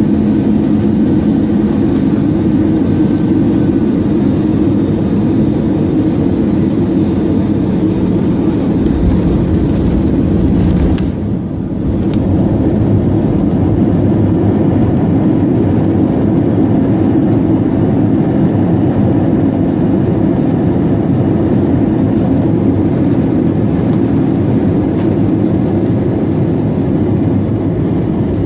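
Airbus A320-200 landing, heard inside the cabin beside the engine: a steady roar of engine and airflow, with a deep rumble about nine seconds in as the wheels touch down on the wet runway. After a brief dip the noise comes back up with reverse thrust and the rollout.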